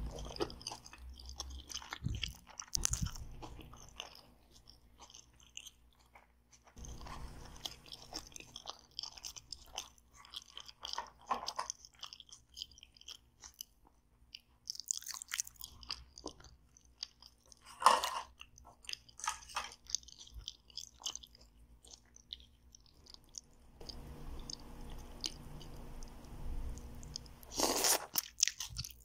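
Chewing and biting into a burger, a run of short, crisp crunches. A sharper, louder crackle comes a little past halfway, from the clear plastic lid of a salad container being handled.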